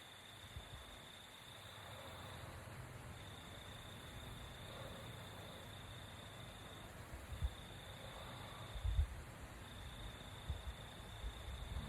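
Crickets trilling, one steady high note in long stretches broken by short gaps. Under it, a sleeper's faint breathing comes about every three seconds, with a couple of low thumps near the end.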